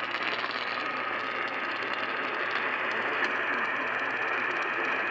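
Steady hiss and static from an AM radio receiver, with no clear programme audio coming through.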